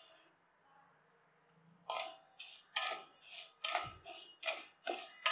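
Dry idli rice poured from a cup into a steel pan, the rush of grains dying away just after the start. After a pause of about a second and a half, a wooden spatula stirs the rice for dry roasting: a rhythmic rustling scrape of grains against the steel, about three strokes a second.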